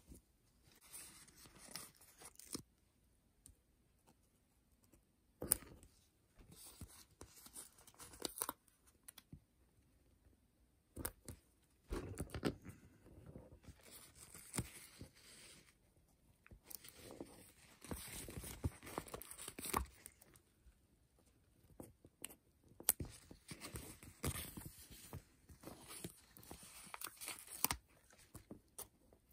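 Paper stickers being peeled off their backing sheets and pressed down onto card, with papery crackling and rustling and short light taps, in irregular bursts with pauses between.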